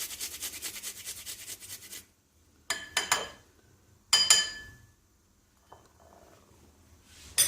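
Garlic clove being grated: quick, even rasping strokes that stop about two seconds in. Then two sharp clinks with a ringing tone, a second or so apart.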